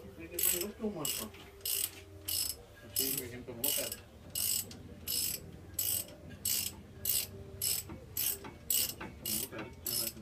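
Ratchet wrench being worked on a bolt at a brake caliper: a short burst of ratcheting clicks on each stroke, about one and a half to two a second, coming a little quicker near the end.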